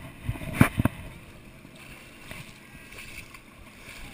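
Shallow sea water sloshing and lapping around a camera held at the waterline, with two sharp bumps in the first second, then steady water noise.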